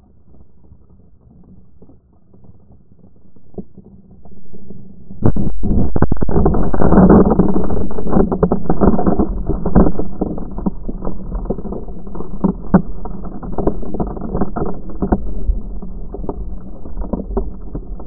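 Surf washing over an action camera at the water's edge. A faint low rumble of small waves comes first, then about five seconds in the camera goes under and the sound jumps to a loud, muffled underwater churning. Dense crackling runs through it from sand and pebbles tumbling against the camera.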